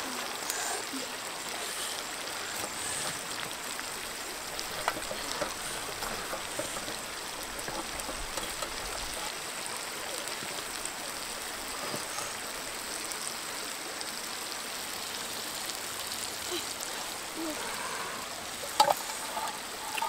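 Steady hiss of a shallow stream running over rocks, with a few light knocks and one sharper, louder knock near the end.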